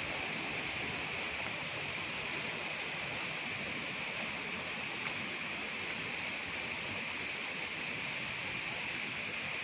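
Rushing water running steadily.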